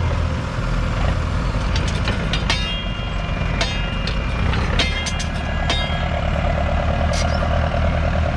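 1983 Fendt Farmer 309 LS tractor's 4.2-litre four-cylinder diesel running steadily under load while it pulls a Kverneland two-furrow mounted plough through the soil. Through the middle, several sharp metallic clinks ring briefly, roughly a second apart, from the plough's steel bodies and frame.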